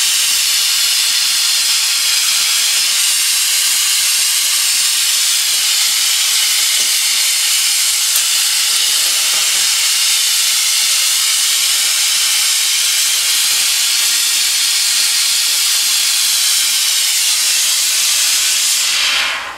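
Oxy-fuel hand torch flame hissing steadily, stopping abruptly near the end.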